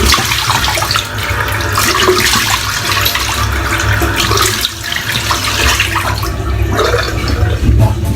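Water running from a tap into a sink, with irregular splashing.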